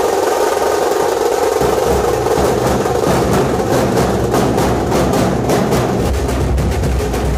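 A troupe of large dhol drums beaten with sticks, many players together in a fast, dense, continuous rhythm. The strikes grow sharper from about halfway through, and the deep booms get heavier near the end.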